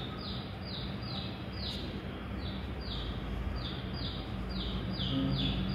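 A small bird chirping in the background: short, high, slightly falling notes repeating two to three times a second, with a brief pause near the middle, over a steady low hum.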